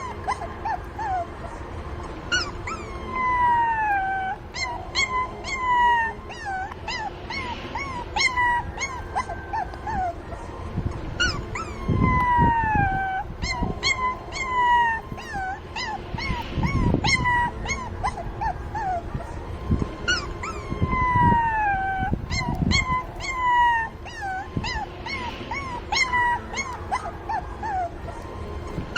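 Several young puppies whining and crying, short high cries that fall in pitch and overlap one another without pause: calls for their mother. Low thumps are heard a few times in the middle.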